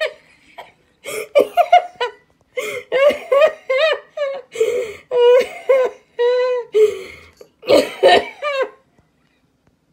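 A woman laughing hard in quick repeated high-pitched bursts with short breaks between them, stopping about a second before the end.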